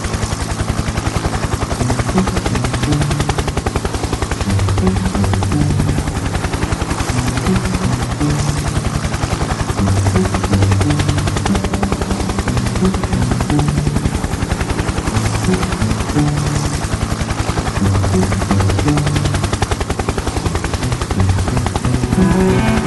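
Background music with a very fast, driving beat and a bass line that moves between a few notes.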